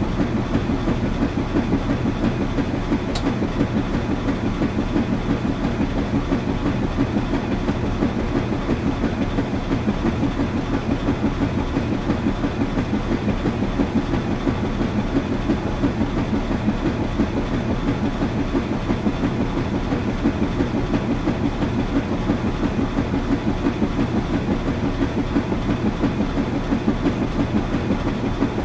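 Washing machine running steadily with a fast, even, rhythmic pulse, its drum turning continuously. There is one faint tick about three seconds in.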